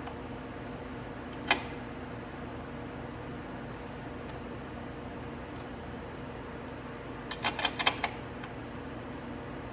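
Light metal clicks and clinks from hand tools working on a motorcycle's chain adjusters: one click about a second and a half in, then a quick run of several clinks near the end, over a steady workshop hum.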